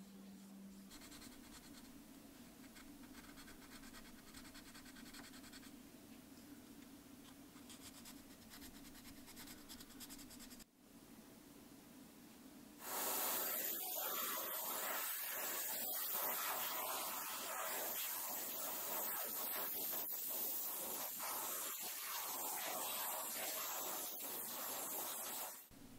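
A small knife scraping and shaving a carved wooden lure, with faint scratching strokes. Then, about thirteen seconds in, a gravity-feed airbrush sprays paint in a steady loud hiss that stops just before the end.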